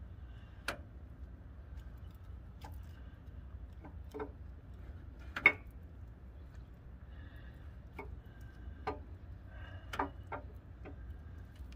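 Irregular metallic clicks, about nine of them and one clearly louder than the rest about five and a half seconds in, from a socket and extension being worked on a bolt at the front of a Ford 5.0 V8 engine block.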